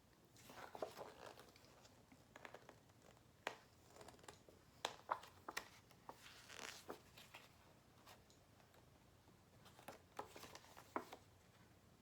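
Faint, intermittent rustling and light clicks of paper and packaging being handled.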